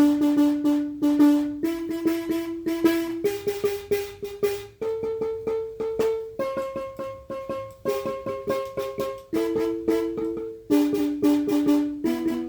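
Ghanaian-style gyil, a wooden xylophone with gourd resonators, played with mallets: fast repeated strikes on each bar, the melody stepping up in pitch to a peak about halfway and coming back down. In the second half two bars are struck together.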